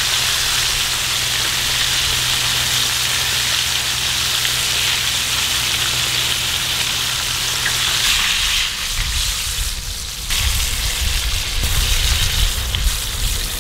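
Battered walleye chunks deep-frying in hot oil in a cast-iron skillet, a steady sizzle.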